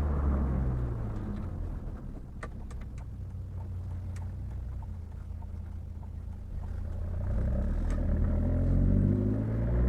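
Chevrolet Vectra 2.2 8V four-cylinder engine with a sports exhaust, running steadily at low revs, then revving up with a rising pitch and growing louder from about seven seconds in.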